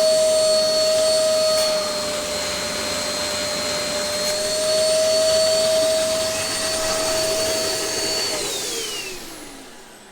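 Dyson DC03 upright vacuum cleaner running with a steady whine. About eight seconds in, the motor winds down, its pitch falling away.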